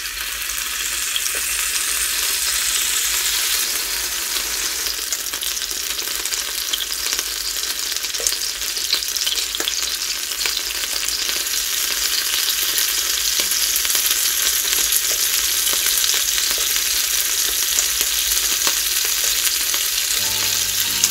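Freshwater eel sizzling in oil on a hot waffle-maker plate: a steady, dense frying crackle.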